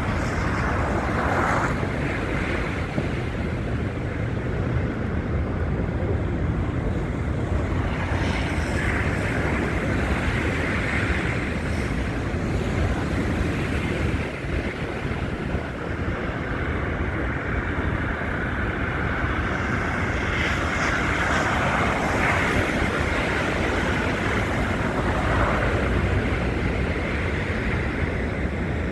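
Wind buffeting a phone's microphone in a snowstorm: a steady low rumble with rushing hiss that swells and fades a few times.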